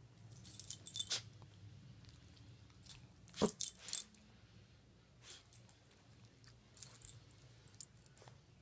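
Metal tag on a Shih Tzu's collar jingling in irregular bursts as the dog rolls and wriggles on its back on a bed, loudest about a second in and again around four seconds.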